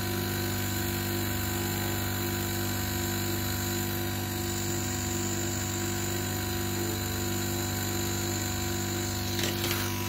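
Steady machine hum with a low buzz and a ladder of steady overtones, unchanging throughout; a short rustle near the end.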